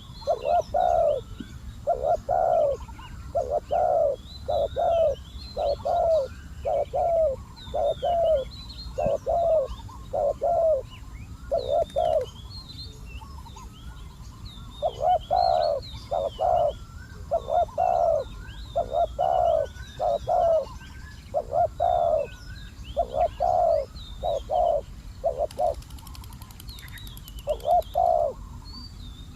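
Spotted doves cooing: a long series of short, throaty coo notes, about one and a half a second, broken by a pause about twelve seconds in and another near the end. Faint high chirps of small birds run underneath.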